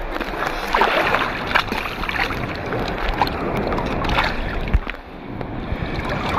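Sea water splashing and sloshing close around a phone held at the surface among waves, with many short irregular splashes over a constant wash of water.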